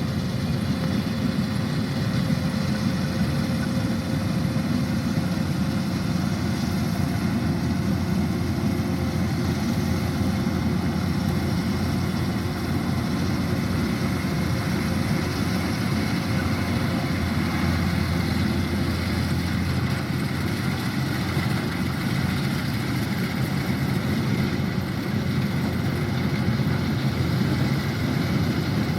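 Kubota DC-105X combine harvester's diesel engine running steadily, a low, even drone with no change in speed.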